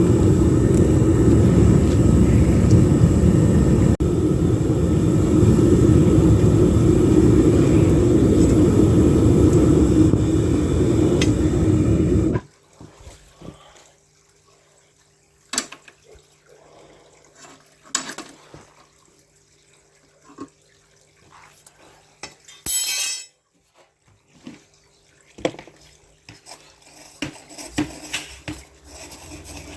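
Home foundry furnace burner running steadily, then shut off suddenly about twelve seconds in. Afterwards come a few scattered knocks and clinks and one short hiss.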